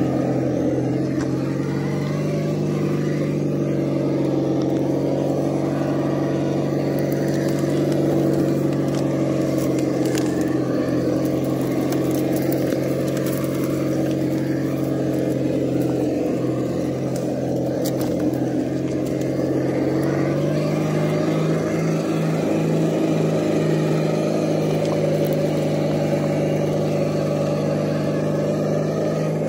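Simulated engine sound from an ESS-Dual+ engine sound simulator in an RC rock crawler, a steady engine rumble that steps up a little in pitch about two-thirds of the way in. A few faint ticks come through in the middle.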